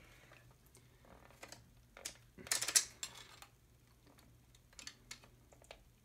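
Metal bottle cap clicking and scraping against the rollers of a hand-cranked paper crimper as it is forced in, with a loud cluster of clicks about two and a half seconds in. The cap does not go through: too thick to crimp.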